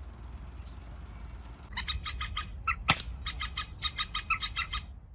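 Birds calling in rapid runs of short chattering notes, several a second, starting a little under two seconds in. One sharp crack of an air rifle shot comes just before the three-second mark.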